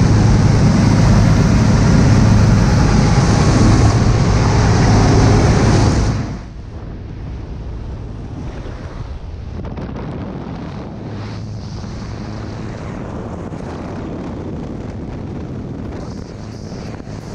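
Loud wind rush and engine drone of a small skydiving jump plane in flight with its door open. About six seconds in the noise drops suddenly to a quieter, duller rush of wind with the engine drone still faintly under it.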